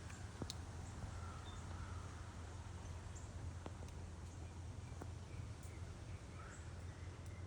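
Birds chirping faintly: short high chirps and a few brief whistled calls scattered through, over a steady low background hum, with a few sharp clicks.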